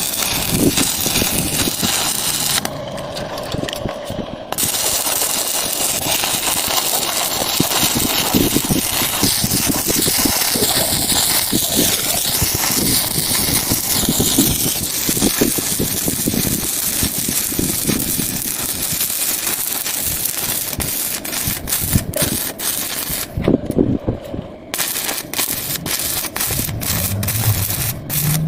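Stick welding arc crackling and sizzling steadily as a vertical gap weld is run. It breaks off briefly about three seconds in and again near the end. Over the last few seconds there is a run of sharp clicks.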